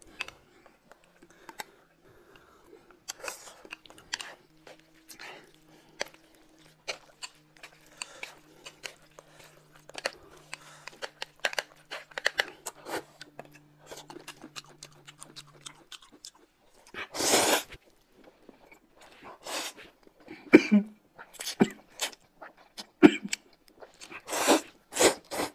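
Eating sounds: chopsticks and a spoon clicking against dishes, and chewing. In the second half come several louder slurps of noodles, the longest about two thirds of the way through.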